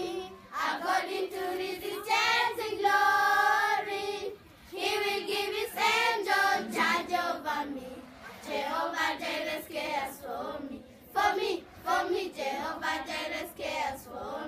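A group of children singing a gospel song together in phrases, with short breaks between them.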